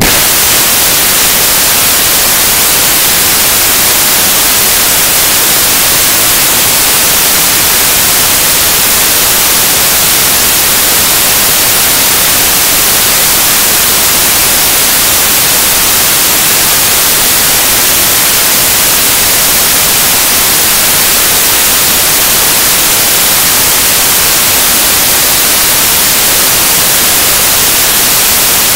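Loud, steady static hiss of white noise on the soundtrack, with no music or voices; it is even throughout and strongest in the high frequencies.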